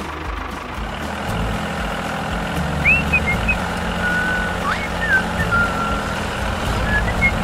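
Tractor engine running steadily at a low, even pitch. From about three seconds in, short bird chirps and whistles sound over it.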